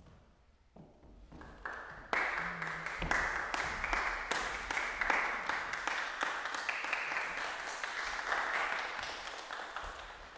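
Audience applauding the performers at the end of a piece: a few claps about a second in, swelling to full applause at about two seconds, then dying away near the end.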